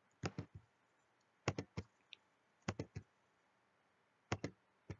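Clicking at a computer: four quick groups of two or three sharp clicks, about a second and a quarter apart, and one more click at the very end.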